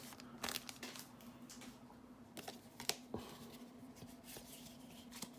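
Faint rustling and a few light clicks of Magic: The Gathering trading cards being handled and flipped through, over a low steady hum.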